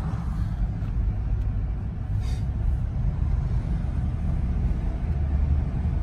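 Low, steady rumble of a Jeep driving on a town street, heard from inside the cab, with a brief hiss about two seconds in.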